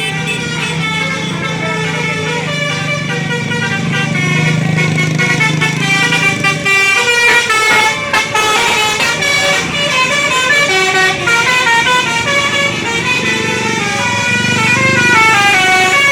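Bus 'telolet' horn: a Basuri multi-tone horn playing a melody of stepping notes, with the bus's engine humming underneath for the first six seconds or so and again near the end.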